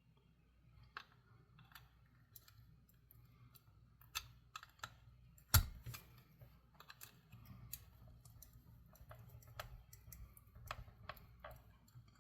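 Scattered small clicks and taps of nippers working at old metal battery terminals in a plastic battery compartment, with one sharper click about five and a half seconds in.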